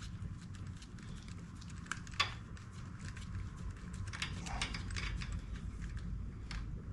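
Scattered light metallic clicks and clinks of hand tools and small metal parts, with one sharper click about two seconds in and a quick run of clicks a little past the middle, over a steady low rumble.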